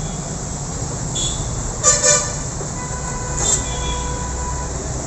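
A horn sounds in two short toots about two seconds in, then a fainter steady horn-like tone, over a steady low traffic rumble.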